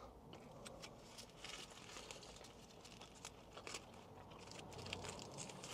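Faint crinkling and rustling of a food wrapper, with scattered soft clicks and crackles.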